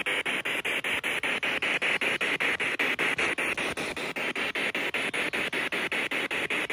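Spirit box radio sweep: a steady hiss of radio static, chopped into short slices about eight times a second as the device scans through stations.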